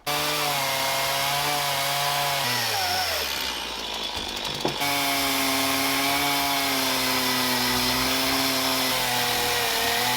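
Chainsaw running at high revs, cutting into a wooden log. Its pitch sags for about two seconds a few seconds in as the bar bites into the wood, then picks back up.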